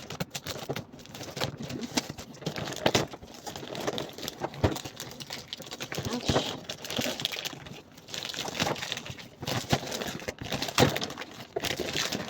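A toy's cardboard box and packaging being opened by hand: steady rustling and crinkling with many scattered clicks and knocks.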